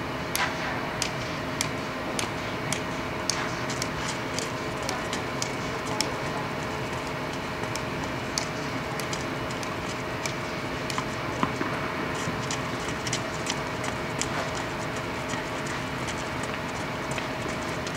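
Steady fan hum of the tennis hall's air-supported dome blower, with irregular sharp knocks of tennis balls being struck and bounced on the clay, a few a second, echoing under the dome.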